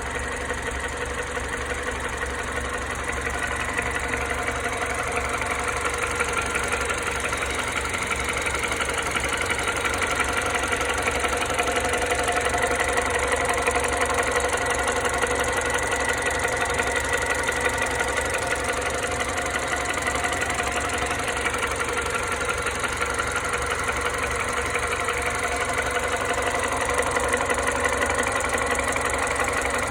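Mini One R56 engine idling steadily with a clattering, diesel-like rattling noise.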